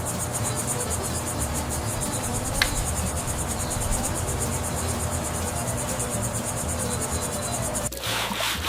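Crickets chirping in a fast, even pulse over a steady hiss; the chirping cuts off suddenly near the end.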